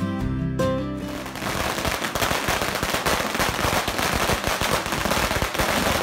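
Background music for about the first second. Then a long string of firecrackers goes off: rapid, unbroken crackling pops, many per second.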